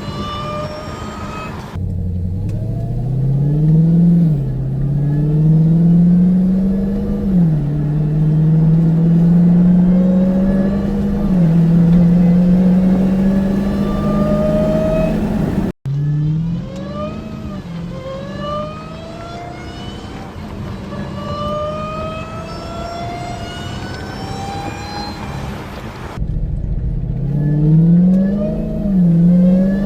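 Hellcat's supercharged 6.2-litre V8, on stock exhaust with a Corsa cold air intake, accelerating hard through the gears. The engine note climbs steadily and drops back at each upshift, several times over, with a couple of abrupt cuts between runs.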